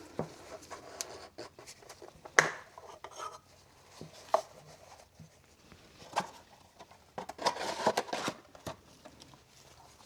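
An oil filter housing cap and cartridge filter being handled: scattered clicks and knocks, a sharp click about two and a half seconds in and another about four seconds in, then a burst of rattling and scraping near the end.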